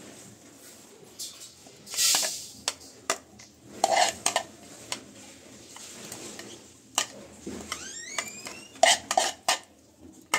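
Steel spoon scraping and tapping inside the clear plastic bowl of a vegetable chopper and against a glass bowl as finely chopped onion is scooped out. Irregular clinks and knocks, with a longer scrape about two seconds in and a brief rising squeak near eight seconds.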